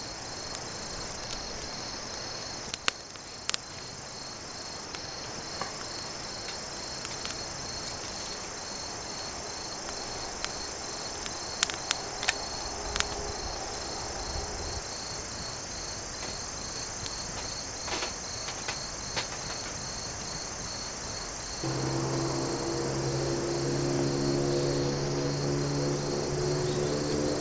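Crickets chirping steadily in a fast, even pulse. Sharp pops and crackles come now and then from a small twig campfire. About three quarters of the way through, steady low tones with several pitches come in.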